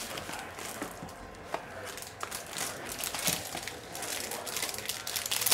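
Clear plastic shrink wrap being peeled off a cardboard trading-card box and crumpled by hand: irregular crinkles and light crackles.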